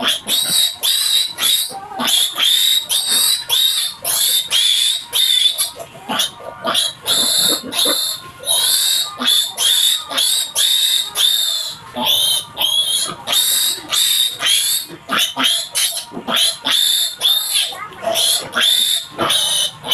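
A piglet squealing over and over in distress, short loud high-pitched squeals about three a second, while it is being castrated.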